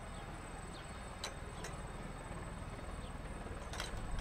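Aérospatiale Gazelle single-turbine helicopter running while hovering low near the ground: a steady rumble of the rotor and turbine with a thin, steady high whine. A few sharp clicks come through, about a second in, shortly after, and near the end.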